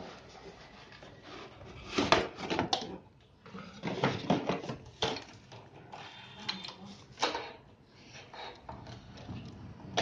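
Cardboard box and packaging rustling, scraping and knocking as a CRT TV circuit board is taken out of its box and handled, in irregular short bursts with the loudest clatters about two and four seconds in.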